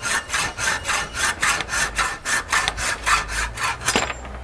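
Hacksaw cutting 16-gauge square tubing held in a vise, with quick, even back-and-forth strokes, several a second. The strokes stop near the end with a sharp click.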